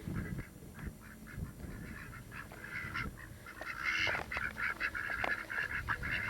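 A flock of domestic ducks quacking, many calls overlapping, busiest about four seconds in.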